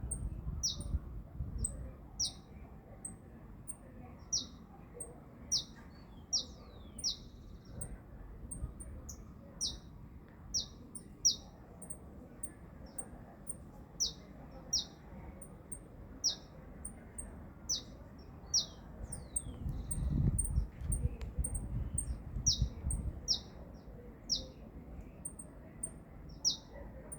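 Birds calling: a run of short, sharp notes that drop quickly in pitch, repeated every second or two, with thin, very high chips in between. A low rumble swells and fades about twenty seconds in.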